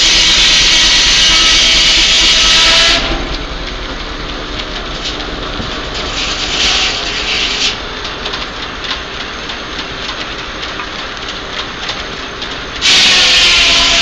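Antique sawmill running: a loud hissing whine of the saw cutting through a log stops abruptly about three seconds in. The saw then runs free, with clattering ticks of the mill's carriage and machinery, until the blade bites into wood again, just as abruptly, near the end.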